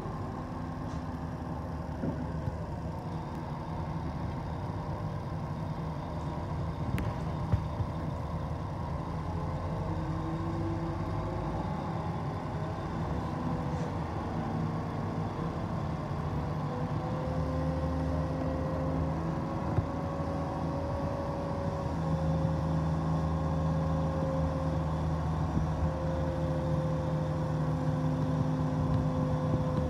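Wheeled mobile crane's diesel engine running under load while it hoists a tram bogie, with a steady whine over the engine note. The engine grows louder about halfway through and again a little later, and a few short knocks come through.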